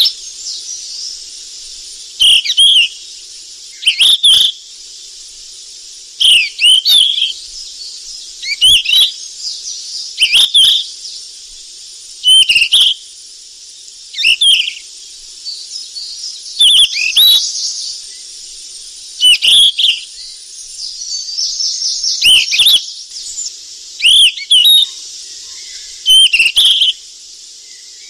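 Flycatcher song: a short whistled phrase that dips and rises, repeated about every two seconds, over a steady high hiss.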